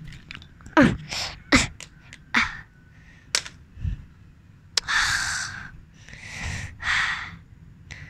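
A child making short breathy vocal noises: quick gasps with falling squeaks in the first two seconds, a few sharp clicks in between, then three longer hissing breaths about five to seven seconds in.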